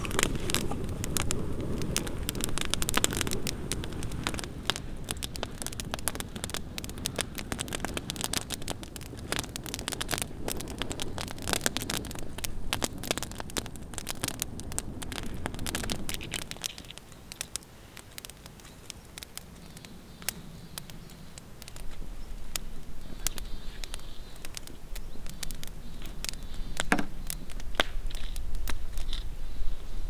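Wood campfire crackling and popping over a steady rush of flame. The dense crackle stops abruptly a little past halfway, leaving a quieter background with a low rumble and a single sharp pop later.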